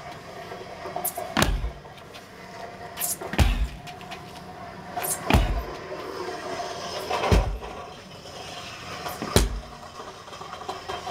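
Sledgehammer strikes: five thuds, evenly about two seconds apart.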